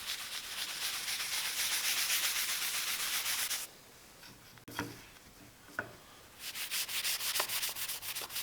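Paste wax being rubbed by hand into a wooden vise face and its wood-veneer inlay: a steady scrubbing hiss, a short pause with two light knocks near the middle, then quick back-and-forth strokes near the end.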